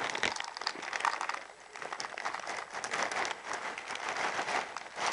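Close rustling and crinkling with dense fine crackles, from guinea pigs rummaging and eating in a food bowl among loose hay.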